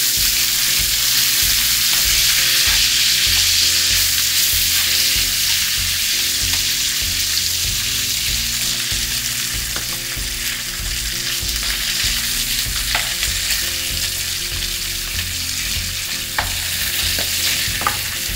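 Pork back ribs searing in butter and olive oil in a nonstick frying pan, a steady sizzle as their surfaces brown. A few light clicks come from wooden chopsticks turning the pieces, mostly in the second half.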